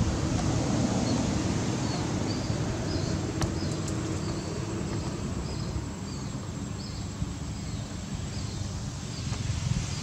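A steady low outdoor rumble, with a small bird giving short high chirps a little more than once a second until a few seconds before the end.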